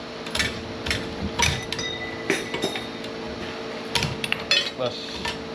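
Scrap copper and brass pieces clinking and knocking together as they are handled: a string of sharp, irregular metal clinks over a steady faint hum.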